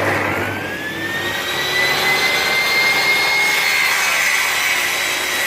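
Assembled table saw running up to speed just after switch-on, its whine rising over the first couple of seconds and then settling into a steady run.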